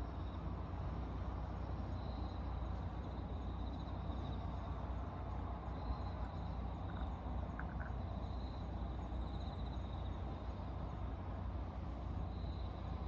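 Steady low rumble of distant traffic, with insects trilling in short high bursts every couple of seconds over it.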